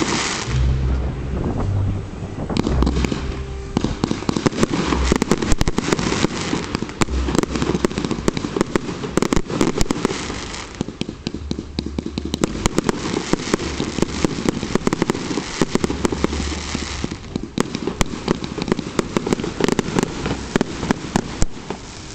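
Fireworks display: aerial shells launching and bursting with repeated deep booms, over dense crackling and popping that runs on throughout.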